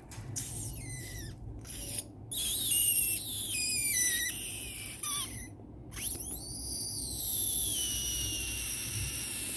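A run of high, clean whistles, each one sliding down in pitch, then a longer whistle that falls slowly over the last few seconds.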